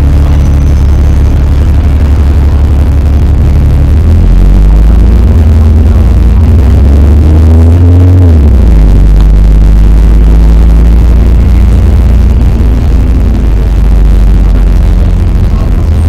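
Bus engine heard from on board, boosted so loud that it distorts into a heavy clipped drone. Its pitch climbs from about four seconds in, peaks near eight seconds, then drops back.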